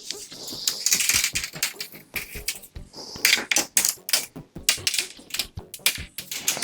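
Rapid, irregular clicking and rattling with short stretches of hiss, like small hard objects being handled or worked.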